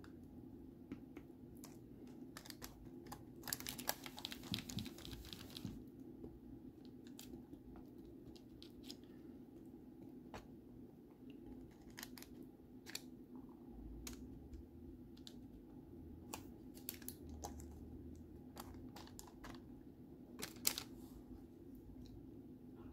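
Faint scattered clicks and light taps, thickest about four seconds in, from a silicone spatula working melted chocolate in a parchment-lined baking tray, over a low steady hum.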